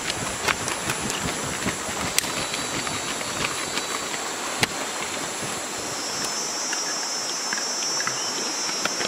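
Steady rushing of a stream with a constant high insect drone, which a stronger, slightly lower insect buzz joins about two-thirds of the way through. A few sharp clicks and taps.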